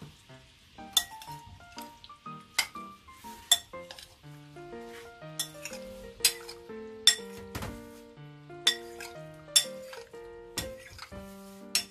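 Metal spoon clinking against a glass mixing bowl while tofu and century egg are stirred and tossed: about a dozen sharp, irregularly spaced clinks over light background music with a stepping melody.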